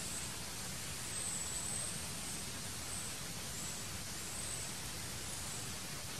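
Steady outdoor background hiss, with faint, short, high-pitched peeps coming and going above it.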